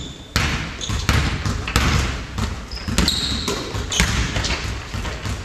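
Basketball bouncing on a hardwood gym floor during a pickup game, with repeated sharp thuds and footfalls echoing in a large sports hall, and a short high squeak about three seconds in.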